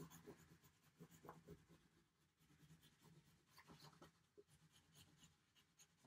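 Faint, irregular scratching of an oil pastel stick drawn in short strokes across paper.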